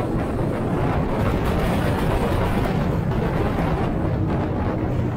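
Motorcycle running at road speed, its engine hum mixed with a steady rush of wind over the microphone.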